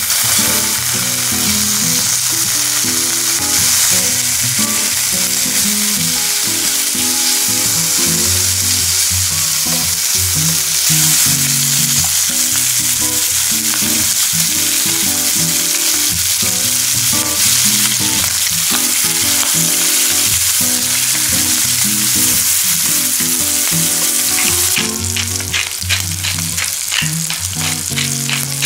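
Chopped bacon sizzling as it fries in a nonstick frying pan, a steady sizzle that turns into sharper crackling and spitting near the end. Soft background music plays underneath.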